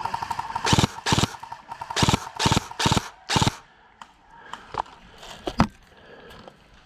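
Electric airsoft rifle firing about six short bursts in quick succession, its gearbox whirring and clattering. A few single sharp cracks follow.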